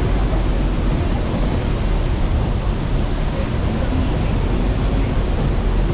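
Steady roar of the Rhine Falls' rushing water, with wind rumbling on the microphone.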